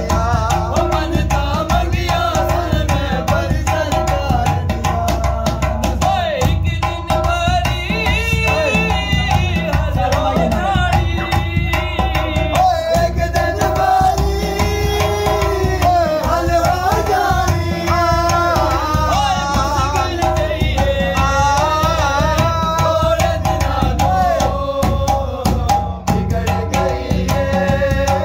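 A man singing while drumming with both hands on an upturned metal cooking pot, the pot's hand strikes giving a steady beat under his voice.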